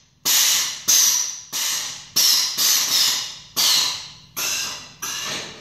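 Air-bag suspension on a bagged short-bus front end: about nine short blasts of hissing compressed air, each cutting in sharply and tailing off, as the air-ride valves are pulsed to move the bags.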